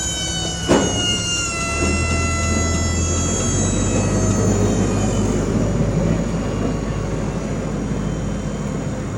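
Vehicle engine running steadily after backing in, with a high whine that slides down in pitch and fades over the first few seconds, and a sharp click about a second in.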